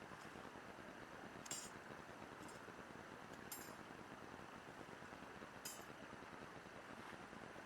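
Three light clinks of small hard objects, about two seconds apart, over a faint steady hiss.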